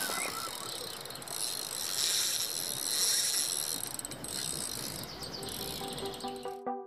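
Spinning fishing reel whirring and clicking as a trout is reeled in on a bent rod, over a steady hiss. Electronic music cuts in near the end.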